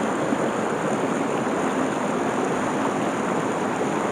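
Small woodland stream rushing over rocks and a little waterfall, a steady even splashing.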